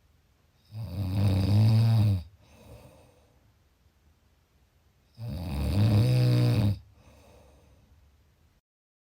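Loud snoring: two long snores about four seconds apart, each lasting about a second and a half, with a faint breath out after the first. The sound cuts out completely for a moment near the end.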